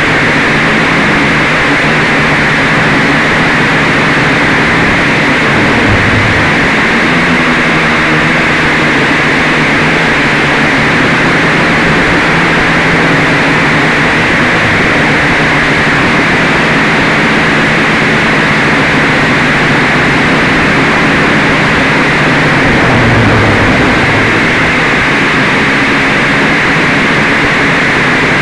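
Quadcopter's electric motors and propellers buzzing steadily in flight, heard close up through the onboard camera, with a strong hiss over the top. The motor tones waver a little as the throttle changes.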